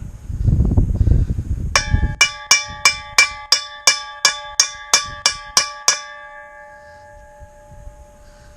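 A hammer striking steel, about a dozen even blows roughly three a second, each ringing like a bell: a new u-joint bearing cap being driven into the driveshaft yoke. A low rumbling, scraping handling noise comes first.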